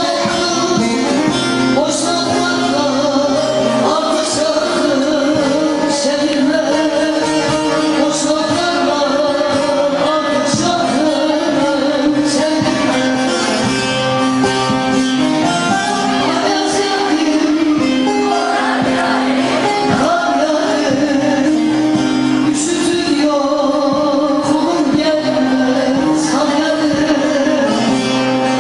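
Turkish folk music played live on bağlama (saz), plucked long-necked lutes, with a singer's voice over the strings.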